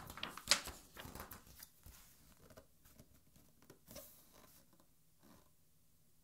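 A page of a large art album being turned by hand: a crisp rustle and crackle of the paper, loudest in the first second and a half, then softer scattered rustling that stops about five and a half seconds in.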